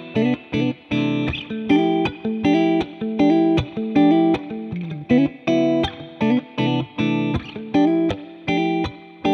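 Intro music: a guitar playing a repeating pattern of short, choppy chords, about two a second.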